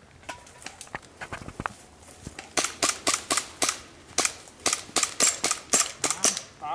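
Airsoft pistols firing: sharp snapping shots, a few faint ones at first, then a quick run of loud shots, several a second, for the last four seconds or so.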